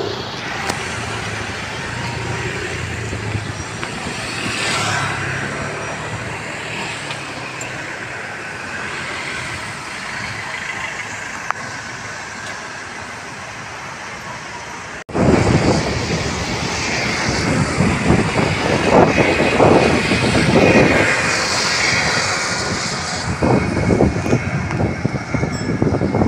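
Steady urban traffic noise. About halfway through, an abrupt cut brings louder, rougher noise with irregular surges.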